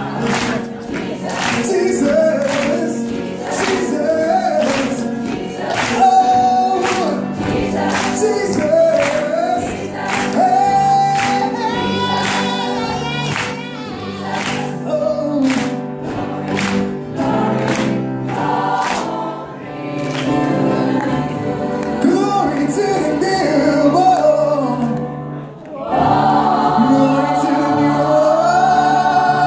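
Mixed choir singing an upbeat song behind a male solo voice on a microphone, with hand claps on the beat, about one or two a second. The clapping fades out after about twenty seconds, and near the end the full choir comes in loudly on a sustained chord.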